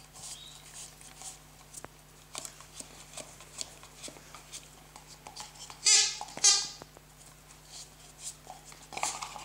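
Small dog licking frothed milk out of a paper cup: soft wet lapping and clicks throughout. About six seconds in come two loud, short pitched sounds about half a second apart.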